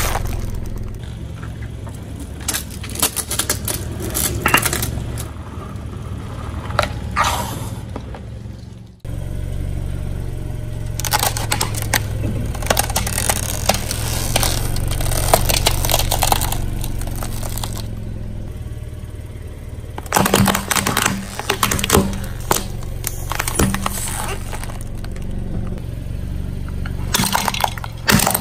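A car tyre rolling over and crushing plastic objects on concrete: a coin-studded plastic ornament, a block of plastic drinking straws, then plastic plates crack and snap in several separate runs of crackling. A low engine hum runs underneath.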